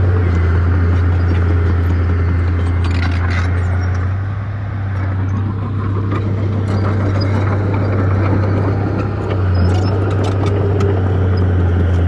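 Heavy diesel engine of earth-moving machinery running steadily with a deep drone, with scattered short clicks and knocks over it; the level dips briefly about four seconds in and again near nine seconds.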